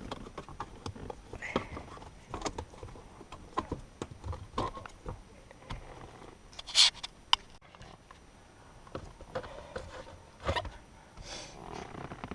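Hands pulling the shifter boot and console trim off a car's shift lever: a string of light, irregular plastic clicks and knocks, with one short loud rasp past the middle.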